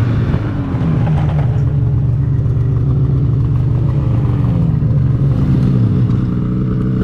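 Polaris 9R Khaos snowmobile's two-stroke engine, fitted with an aftermarket titanium chambered muffler, coming off the throttle: its pitch falls gradually as the sled slows and settles to a low, steady idle near the end.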